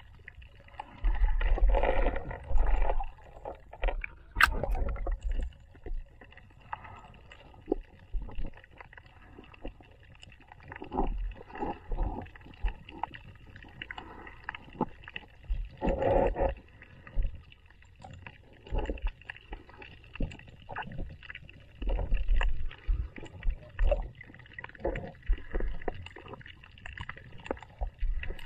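Muffled water sounds picked up by a submerged action camera's microphone: irregular sloshing and gurgling swells with deep low bumps, and one sharp click about four and a half seconds in.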